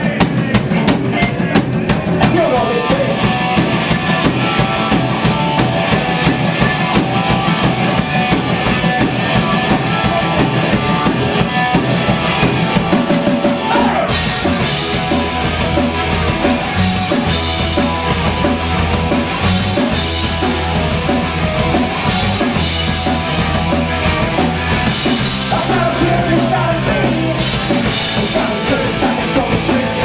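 Live punk rock band playing loud through amplifiers: electric guitars, bass guitar and drum kit, with fast, even drum beats. About halfway through, the sound grows brighter and the bass settles into long, low held notes.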